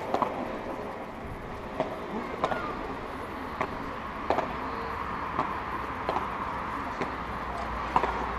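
Padel rally: a string of sharp knocks as the ball is struck by the rackets and bounces off the court and glass walls, about ten in all, coming every half second to a second, over a murmur of spectators.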